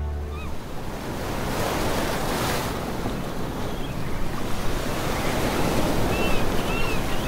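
Ocean surf washing in a steady, surging hiss. Short high chirps come a few times just after the start and again in a quick run near the end.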